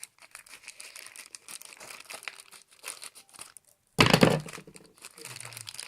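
Black package bag crinkling and rustling as it is handled and opened, in many quick small crackles, with a sudden loud thump about four seconds in.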